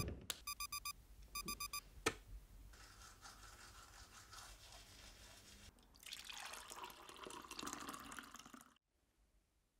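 Two quick runs of electronic beeps, then a toothbrush scrubbing teeth for about three seconds, then slurping sips from a mug, cut off abruptly near the end.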